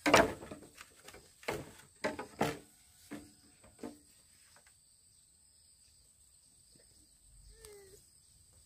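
Wooden knocks, about six of them over the first four seconds, the first the loudest, from wood being struck. Then a lull with a faint steady high drone of insects and a short pitched call near the end.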